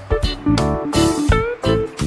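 Background music: guitar with notes bent up in pitch, over a drum beat.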